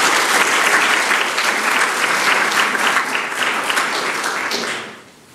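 Audience applauding, a dense patter of many hands clapping that dies away shortly before the end.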